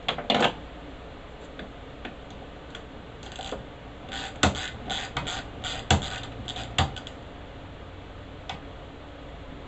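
Hand work on a bus's rear-window gas strut and its mounting hardware: irregular clicks, rattles and scrapes, with three sharp knocks about four and a half, six and seven seconds in.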